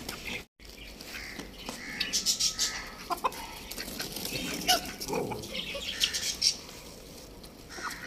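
A mixed flock of domestic birds (pigeons, ducks, guinea fowl and chickens) feeding on the ground, with scattered short calls and chirps coming in bunches.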